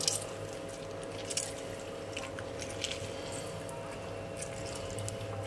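Half a lemon squeezed by hand through a small mesh strainer: faint squishing with a few soft clicks, the sharpest right at the start. A steady low hum runs underneath.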